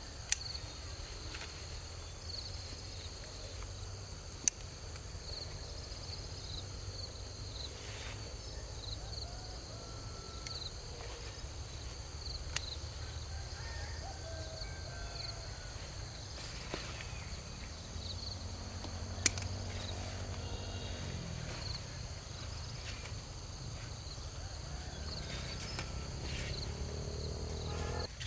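Steady chorus of insects, crickets or similar, making a constant high drone with faint chirps over a low rumble. A few sharp clicks or snaps stand out, the loudest about four seconds in and near the middle.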